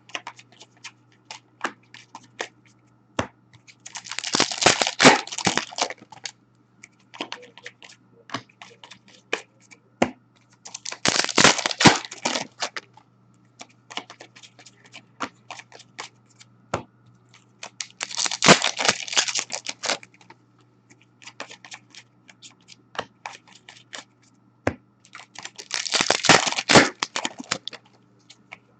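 Hockey card pack wrappers being torn open one after another, four rips about seven seconds apart, with cards clicking and rustling as they are handled in between.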